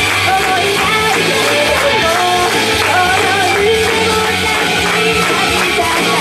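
A woman singing an upbeat rock-style song live into a microphone, over loud rock accompaniment with guitar.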